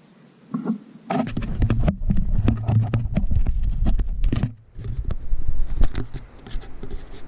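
Handling noise of fingers on the camera, rubbing and knocking against the body and microphone. It starts with a light knock about half a second in, then becomes a loud, muffled rumble full of clicks and scrapes from about a second in, with short lulls partway through.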